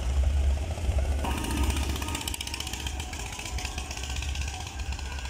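A go-kart's small engine buzzing as the kart drives past, growing louder about a second in and easing off as it moves away, over a steady low rumble.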